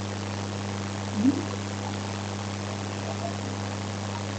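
Steady electrical mains hum with a low buzz and an even hiss, with one brief faint rising sound about a second in.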